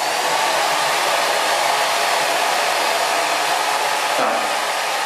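Brock HD8501RD hair dryer running steadily: a continuous rush of blown air over its fan motor, with a brief change in its sound a little after four seconds in.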